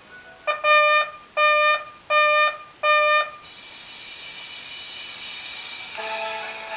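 Weatherscan's severe-weather alert tone played through a television: four loud electronic beeps of one steady pitch, each about half a second long, in the first few seconds, signalling a new warning crawl. The channel's instrumental background music follows.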